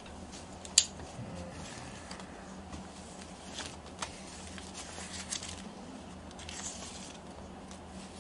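Light handling noises: a sharp click about a second in, then scattered soft taps and rustles, over a low steady hum.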